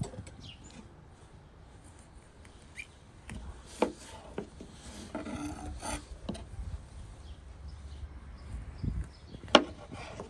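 Kitchen knife cutting peeled citrus fruit in half on a plastic cutting board: soft slicing and handling, with sharp taps as the blade meets the board, about four seconds in and loudest near the end.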